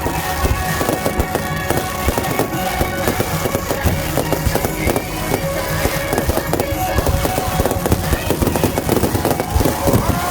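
Dense, rapid fireworks bursts and crackling from an aerial fireworks display, a continuous barrage of bangs, with music playing alongside.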